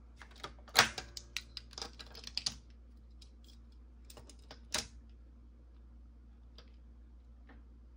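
A quick run of light plastic-and-metal clicks and clatter from die-cast toy cars and a toy race track being handled while the next race is set up, loudest about a second in, with one more sharp click near the middle.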